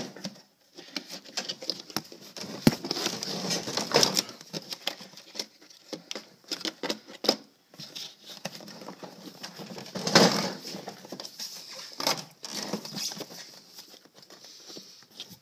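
Irregular clicks, knocks and rubbing of hands fumbling a power cord into its fitting on a Festool CT22 dust extractor, with the loudest knocks about 4 and 10 seconds in.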